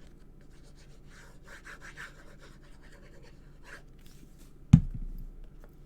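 Cardstock being handled and rubbed against the work surface as a card piece is attached, giving soft, scattered scraping sounds. About three-quarters of the way in comes a single sharp thump, the loudest sound.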